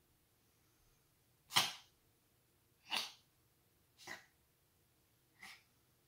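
A domestic cat sneezing four times in a row, a little over a second apart, each sneeze quieter than the one before. The sneezing was set off by a little straw of grass that worked its way into the cat's nose after it ate grass.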